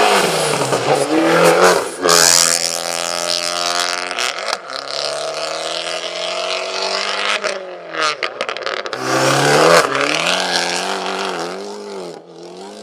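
Fiat 500 Abarth's turbocharged four-cylinder racing engine at full throttle. Its pitch climbs steadily through each gear and drops sharply at the upshifts, about a third of the way in and again past halfway. Bursts of exhaust crackling and popping come on the shifts and lift-offs.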